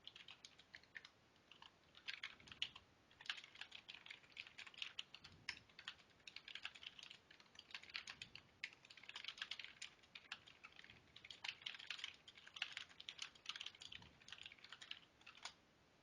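CM Storm Devastator gaming keyboard being typed on in quick, irregular runs of keystrokes with short pauses, faint and heard as it comes through a Skype call.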